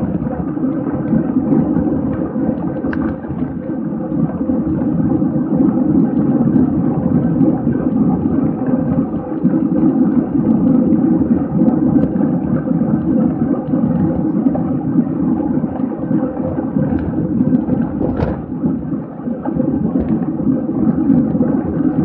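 Wind rushing over the microphone of a 360 camera on a racing bicycle ridden at race speed: a steady, dense low rush. A single sharp click comes about 18 seconds in.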